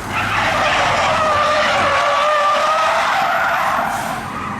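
Car tyres squealing in a long drifting skid, a wavering squeal over steady tyre noise that fades away near the end.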